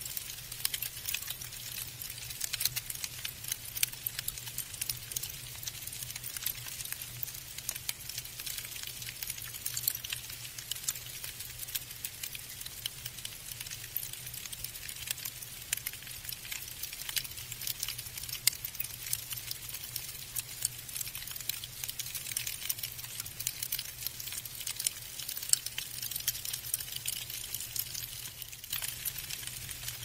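Falling snow pattering: a dense, steady crackle of tiny ticks, with a faint low hum beneath.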